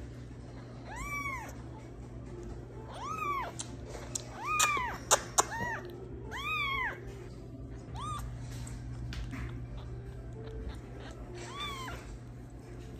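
Baby tabby kitten mewing repeatedly: about seven thin, high-pitched mews, each rising and then falling in pitch, a second or two apart and thinning out in the second half. Two sharp clicks sound about five seconds in.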